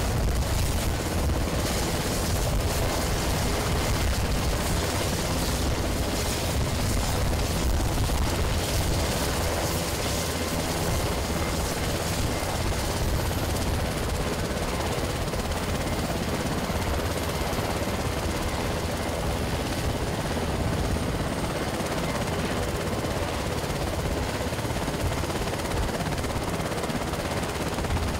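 CH-148 Cyclone helicopter running on the ground, its twin turboshaft engines and main and tail rotors turning with a steady, loud noise.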